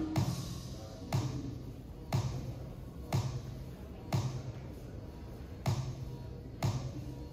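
A sound effect from a video installation: dull thumps about once a second, each a short low knock with a hissy tail. They mark the words of the on-screen text being typed and replaced. The gap is a little longer around the middle.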